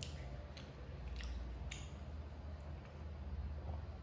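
Quiet eating sounds: about five faint, sharp clicks and soft squishes from a hand mixing rice and chicken and from chewing.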